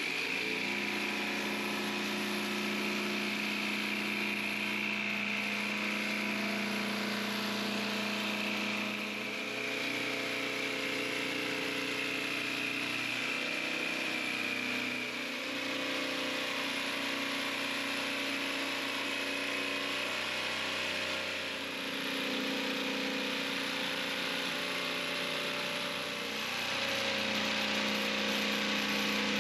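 Corded jigsaw running continuously as its blade cuts an outline through thick plywood. The motor note shifts in pitch and briefly dips a few times as the cut goes on.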